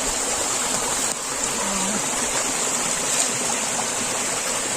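Waterfall water rushing, a steady, unbroken hiss.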